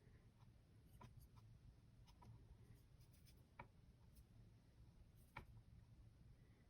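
Faint, scattered taps and scratches of a watercolour brush on paper, a few short strokes several seconds apart, over a low steady room hum.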